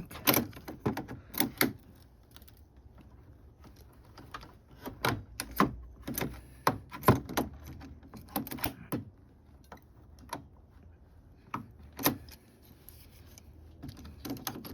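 Irregular metallic clicks and clatter of hose-clamp pliers squeezing a spring hose clamp and sliding it along a radiator hose, in short clusters with a single sharp click near the end.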